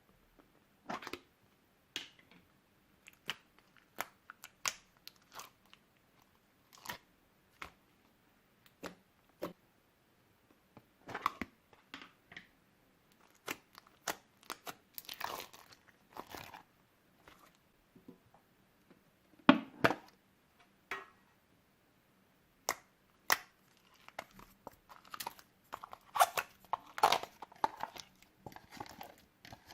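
Old slime being squished and mixed by hand: irregular sticky pops, clicks and crackles, bunching into denser crackly stretches several times, with one sharp pop about twenty seconds in.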